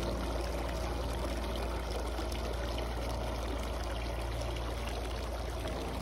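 Water from a tiered stone garden fountain falling in thin streams and splashing into the basin: a steady trickling splash, with a low steady hum underneath.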